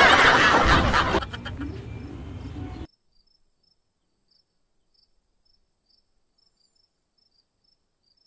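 A loud, excited human voice, shouting or screaming, fading out about a second in, followed by a quieter noisy stretch. Then near silence with only faint high chirps repeating about three times a second.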